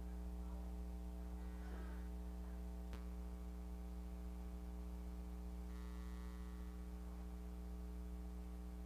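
Steady electrical mains hum with a ladder of overtones, with one faint click about three seconds in.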